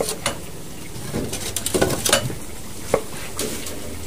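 Kitchen utensils clinking and knocking against pots and dishes during cooking: a handful of scattered, irregular clinks.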